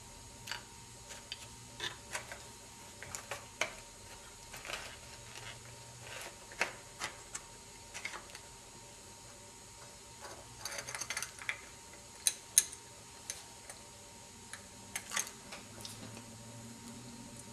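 Light, irregular clicks and taps of small plastic Lego parts being handled and pressed on a model garbage truck's hopper and cart tipper, with a busier run of clicks a little past the middle.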